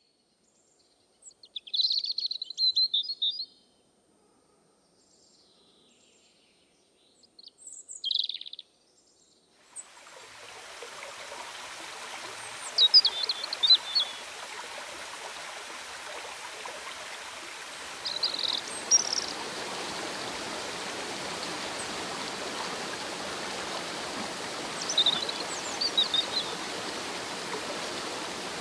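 Short clusters of bird chirps against near silence. About ten seconds in, the steady rushing of a rocky stream and small waterfall fades in, and more bird chirps come over it.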